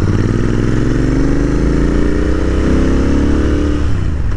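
Royal Enfield Interceptor 650's parallel-twin engine accelerating, its note rising as the bike picks up speed. Near the end the note drops suddenly and then starts to climb again, as at an upshift.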